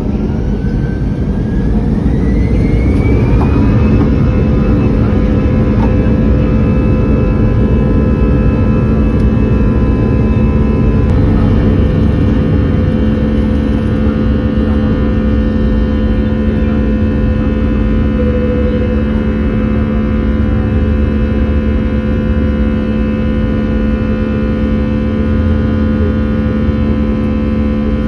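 Jet airliner engines heard from inside the cabin during takeoff: a whine rising in pitch over the first few seconds as the engines spool up, then holding steady at high power through the climb over a loud low rumble.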